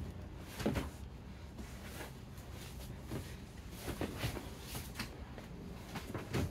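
Two grapplers rolling on vinyl-covered foam mats: bodies scuffing and thumping on the mat, with sharper thuds about a second in, around four seconds in and near the end.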